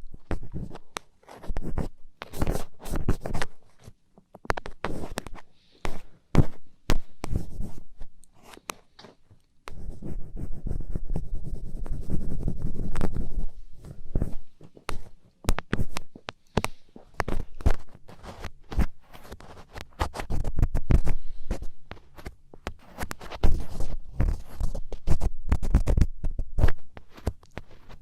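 ASMR ear-cleaning sounds: an ear pick scratching and scraping firmly in quick, irregular strokes and taps, with a denser run of scraping about ten seconds in.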